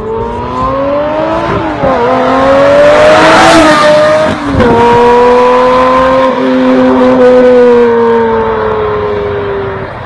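Lamborghini Murciélago SV's V12 engine accelerating hard through the gears. Its note climbs, drops at an upshift about two seconds in and again about four and a half seconds in, then holds high and slowly falls away near the end.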